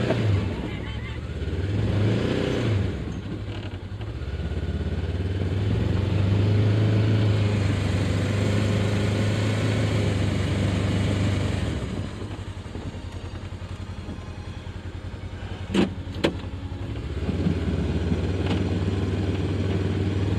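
Side-by-side utility vehicle's engine running in low range under load as it ploughs through deep snow, the revs rising and falling. About two-thirds of the way through it eases off to a lower drone, two sharp knocks sound, and then it pulls again.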